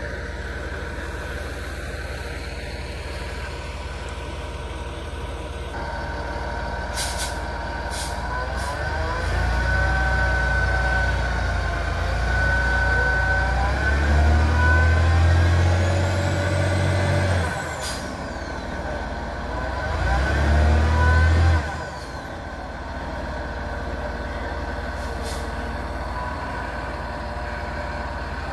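Medium-duty truck engine straining under load as it pulls a houseboat on its trailer up out of the water, revving hard in two surges past the middle and then dropping back to a steady idle. A couple of brief hisses come before the first surge.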